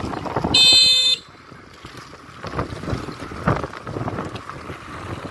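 A vehicle horn beeps once, about half a second long, about half a second in, over outdoor street noise with wind on the microphone.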